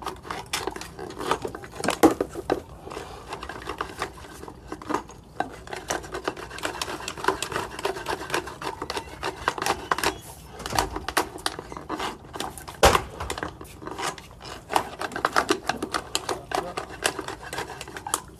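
Sewer inspection camera's push cable being fed down a drain line, with dense, irregular clicking, rattling and scraping.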